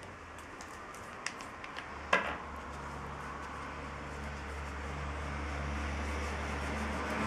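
A sharp click about two seconds in, then a steady low machine hum that grows slowly louder, with a few light taps of paper handling before it.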